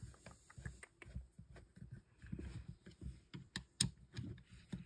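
Small irregular clicks and taps of a 3 mm Allen key working the screws along a Byrna TCR launcher's shell as they are snugged up, with a couple of sharper clicks late on.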